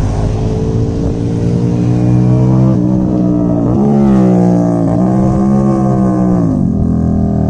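Suzuki SV650's V-twin engine with a loud aftermarket exhaust, ridden past in third gear and then downshifted toward second and first. The engine note dips and picks up again a few times, is loudest about four seconds in, and drops in pitch near the end.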